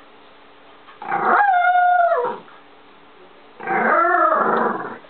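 A dog gives two drawn-out, whining howls, each lasting about a second and a half. The first holds a steady pitch and then drops at the end. The second wavers up and down.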